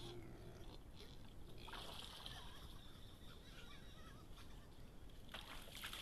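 Faint splashing and sloshing of river water as an animal moves through the shallows at the bank, in two short bouts, one about two seconds in and one near the end.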